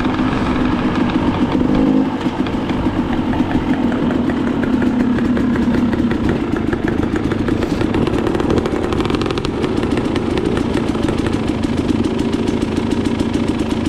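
Two-stroke dirt bike engine running steadily at close range, its pitch rising and falling a little with the throttle.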